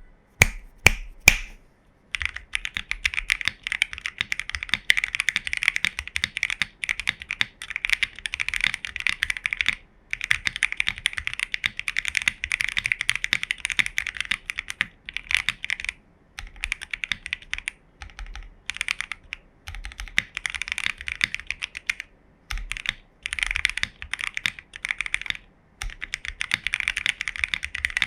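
Fast typing on a Fuji 75 mechanical keyboard with lubed, filmed Gateron Ink Box Black switches, a polycarbonate plate and CRP Greek keycaps. Three single keystrokes come first, then dense bursts of typing a few seconds long with short pauses between them.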